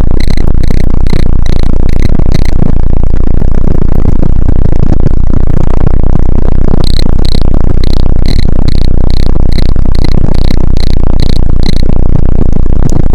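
Mercedes-Benz A-Class squeak: a short high-pitched squeak repeating evenly about three times a second, over a loud low rumble. It stops after about two and a half seconds, starts again about seven seconds in, and stops near the end.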